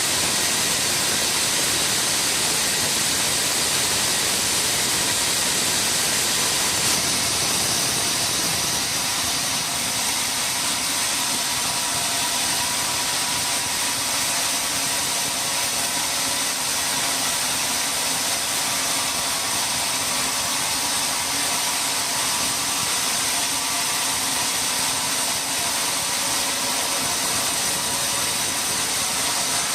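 Sawmill machinery running: a steady mechanical noise with a strong hiss that does not let up, as from a band sawmill at work.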